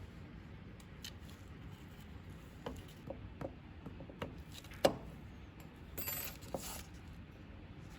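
Small objects being handled: a few light clicks and taps, the sharpest about five seconds in, then a short rustle about six seconds in, over a low steady background hum.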